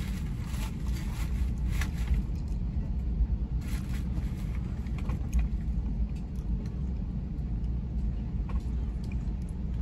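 Amtrak Acela train in motion, heard inside the passenger car: a steady low rumble with faint clicks and rattles now and then.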